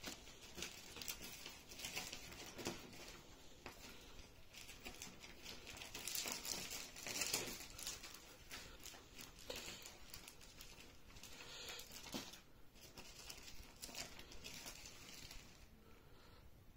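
Faint, irregular rustling and crinkling of something being handled close to the microphone, with small clicks, loudest about six to eight seconds in.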